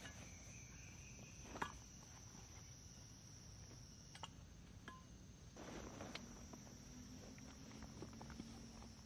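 Faint handling noises of gear inside a tent: a sharp click about one and a half seconds in, a few light taps, and a short rustle about six seconds in. A steady high insect drone runs underneath.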